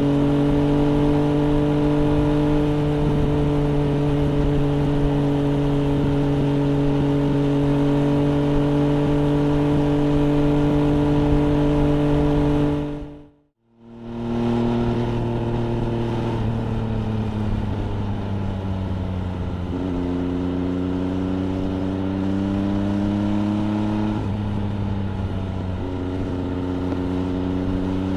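MV Agusta Brutale 800 RR's three-cylinder engine running through an FF by Fresco aftermarket exhaust, heard from the rider's seat, holding a steady pitch at a constant speed. About halfway through, the sound fades out and back in quickly. After that the engine note falls slowly, with a couple of sudden jumps in pitch.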